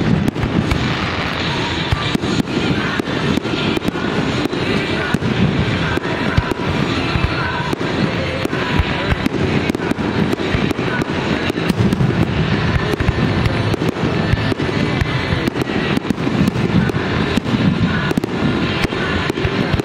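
Fireworks display: aerial shells and ground fountains going off in a rapid, continuous string of bangs and crackles.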